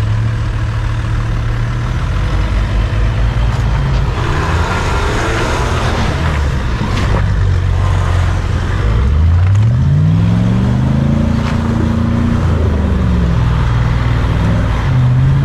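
Jeep engine pulling under load off-road, heard close beside the front wheel, with the tires grinding over dirt and loose stones. The revs rise about nine seconds in, hold, drop back, and rise again near the end.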